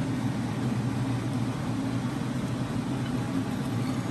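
Steady low mechanical hum, like a running fan or appliance motor, holding an even level throughout.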